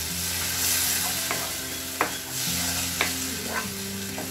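Wooden spatula stirring a thick tomato and onion masala in a frying pan, the mix sizzling in butter, with a sharp knock of the spatula against the pan about once a second.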